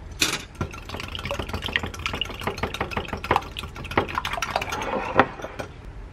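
Raw eggs being beaten in a glass mug: a utensil clicks quickly and unevenly against the glass through the wet, sloshing egg. The beating stops about half a second before the end.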